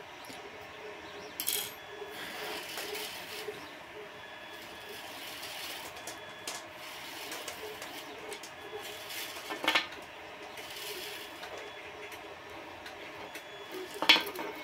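Hands feeding a GT2 rubber timing belt through the 3D printer's plastic carriage and idler blocks: soft rubbing and handling noise broken by three sharp clicks, the loudest near the end.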